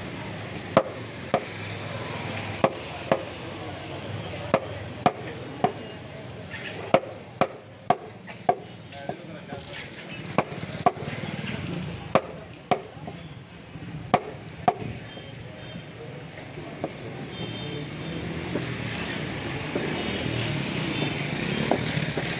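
Butcher's blade chopping sheep meat into small boti pieces: a string of sharp, irregular chops, often in pairs, that pause for several seconds near the end.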